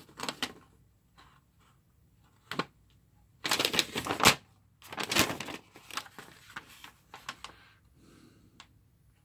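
Paper instruction sheet rustling and crackling in bursts as it is flipped and unfolded, loudest a little before the middle.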